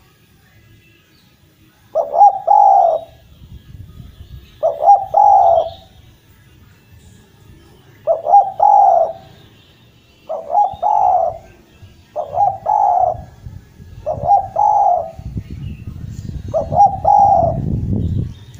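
Spotted dove (derkuku) cooing over and over: seven phrases about a second long, roughly every two seconds. A low rumble rises under the last few calls.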